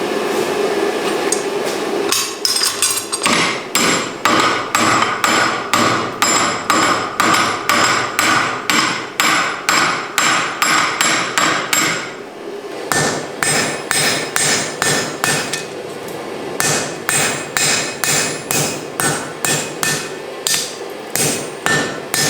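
Blacksmith's hammer striking hot mild steel on the anvil, in two long runs of quick blows at about three a second, each blow ringing. A steady rushing noise comes before the first blow, and there is a brief pause between the runs.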